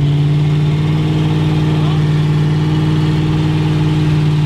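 Pickup truck engine held at raised revs with a steady pitch, under load as it strains on a tow strap to pull a stuck pickup off a dirt pile.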